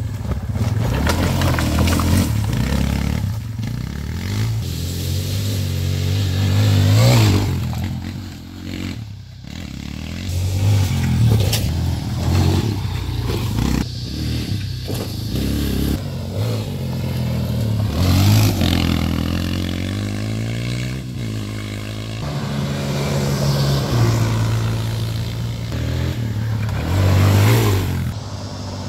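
Yamaha Raptor 250 quad's single-cylinder four-stroke engine being ridden hard, revving up and falling back again and again as the throttle is worked.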